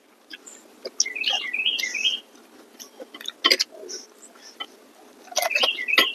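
A songbird singing two quick warbling phrases of stepping notes, about a second in and again near the end, over close mouth smacks and chewing clicks of people eating.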